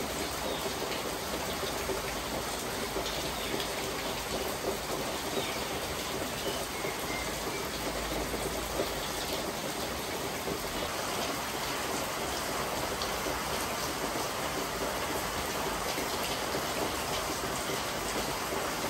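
Steady monsoon rain falling on banana leaves and the ground around, an even wash of rain noise with scattered individual drop hits.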